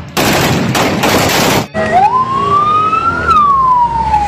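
A burst of rapid automatic gunfire fired into the air, cutting off about a second and a half in. Then a rescue ambulance siren wails, rising in pitch and then falling slowly.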